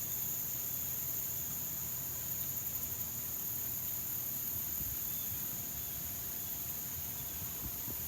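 Outdoor insect chorus: a steady, continuous high-pitched trilling drone from many insects.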